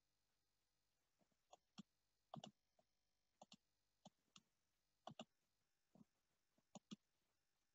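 Faint clicks of a computer mouse: about a dozen short, sharp clicks at irregular intervals, several of them in quick pairs.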